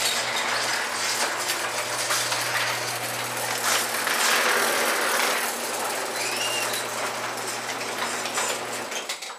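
Electric garage door opener running as the door rolls up: a steady motor hum under a continuous mechanical rattle. It starts suddenly and stops shortly before the end.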